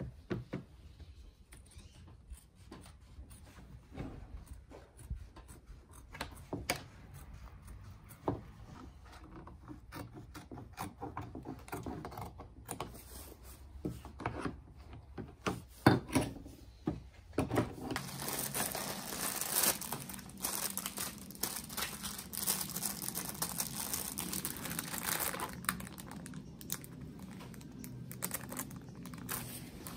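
Scissors snipping and fabric being handled while the blue covering on a door trim panel is trimmed, as scattered sharp snips and clicks. From a little past the middle, denser continuous crinkling and rustling of a masking sheet being pressed over the panel's speaker grille.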